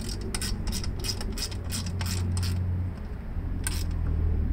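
Quick, irregular light clicks and rattles of hand tools and metal parts being worked on a small mower engine during reassembly, over a steady low hum.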